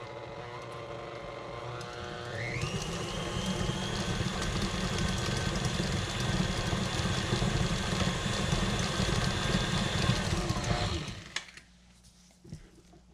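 Stand mixer with a flat beater paddle running as it beats softened cream cheese. It runs at low speed, steps up quickly to a higher-pitched speed a couple of seconds in, then winds down and stops about eleven seconds in.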